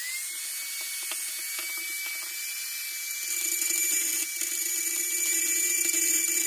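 Small orange cordless rotary tool running with a steady high-pitched whine. About three seconds in, its bit is put to the steel jaws of a pair of needle-nose pliers, and a louder grinding of bit on metal joins the whine.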